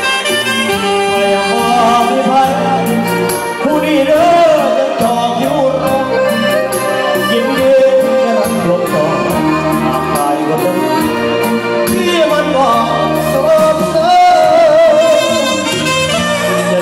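Live luk thung band music played loud through a stage PA: a wavering lead melody over a steady drum beat.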